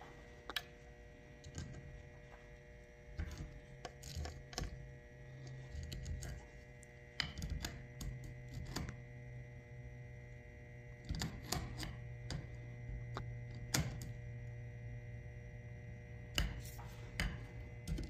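Light, irregular metallic clicks and taps from a screwdriver shaft touching and scraping across the terminals of a garage door opener's 70-microfarad motor capacitor, shorting the leads to discharge it. A faint steady hum runs underneath.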